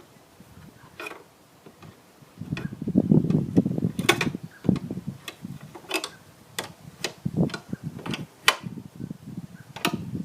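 A ratchet and socket tightening the retaining nuts on a Commodore's ABS module: sharp, irregular metal clicks about once a second over tool-handling knocks, starting about two seconds in.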